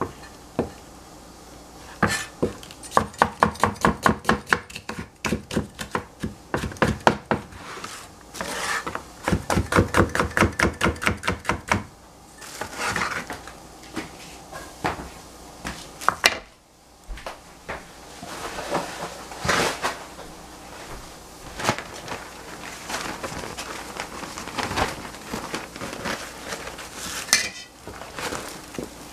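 Cleaver chopping red capsicum on a plastic cutting board: two quick runs of even strokes, about four a second, over the first ten seconds or so, then scattered knocks and handling sounds.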